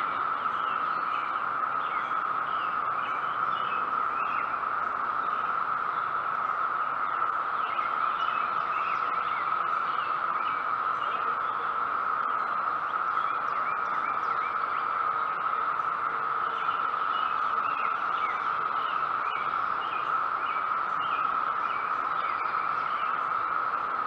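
Chorus of 17-year periodical cicadas: one steady, unbroken high drone. Scattered short bird chirps sound over it.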